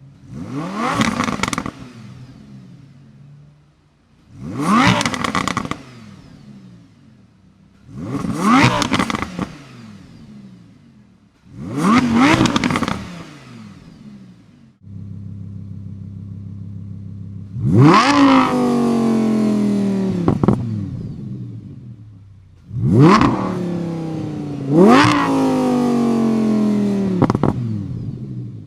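Lamborghini Huracán LP610-4's 5.2-litre V10 revved in quick blips at standstill in Strada (quiet) mode: four separate blips on the stock exhaust. Then, with a Fabspeed valved Supersport X-pipe exhaust fitted, it idles for a few seconds and is blipped four more times, each rev dropping back more slowly.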